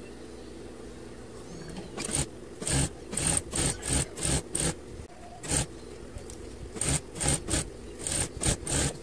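Juki industrial sewing machine stitching in about a dozen short bursts, each a fraction of a second, over a steady low hum.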